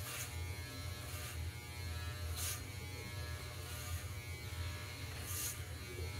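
Corded Wahl electric hair clippers with a yellow guard comb running with a steady buzz while cutting hair on top of the head, with a few brief hissy swishes.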